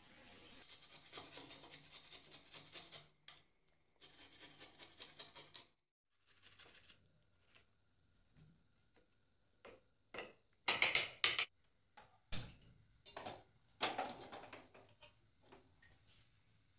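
Onion being rubbed on a steel hand grater: soft rhythmic rasping strokes, about four to five a second. Partway through come a few sharp metal clinks and a knock of the grater against a steel plate.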